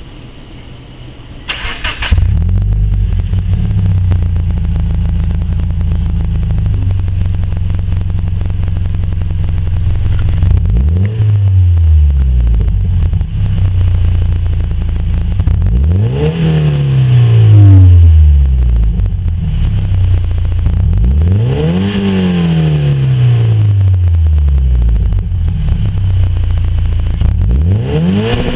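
Scion FR-S/Toyota GT86's 2.0-litre flat-four boxer engine through a GReddy Evo3 exhaust: it cranks and starts about two seconds in, settles into a steady idle, then is revved four times, each rev climbing and falling back to idle, the last starting near the end.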